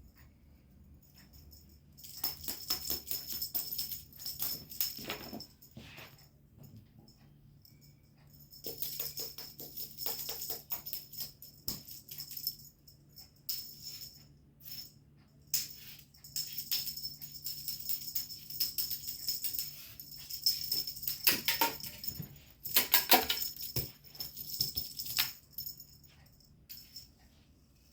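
Small jingling, rattling clicks, like a bell or a rattle being shaken, come in several bursts of a few seconds each over a faint steady low hum.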